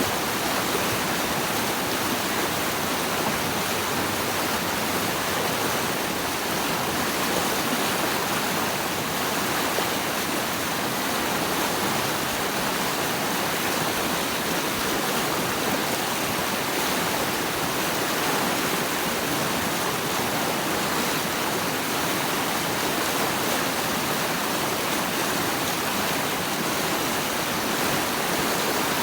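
Flowing water rushing steadily, an even unbroken wash of sound with no change in level.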